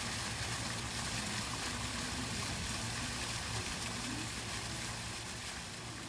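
Garden fountain splashing steadily, its jets falling back into a pond.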